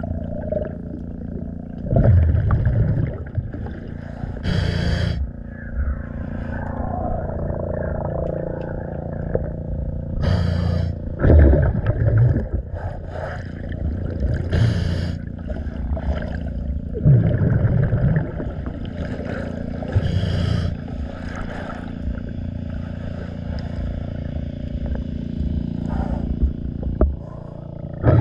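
Underwater sound of a scuba diver's regulator: bursts of exhaled bubbles every few seconds over a steady low hum.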